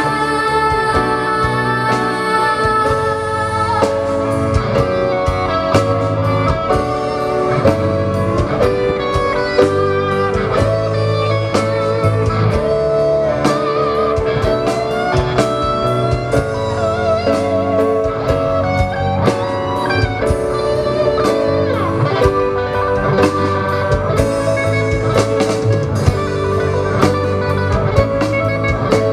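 Live rock band playing: electric guitars over a drum kit, with a guitar line bending and wavering in the middle and a woman singing in parts.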